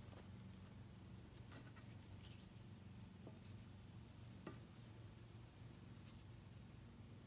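Near silence: a steady low hum, with a few faint light clicks and rubs from a small block of hardwood being turned over in the hand, the clearest about halfway through.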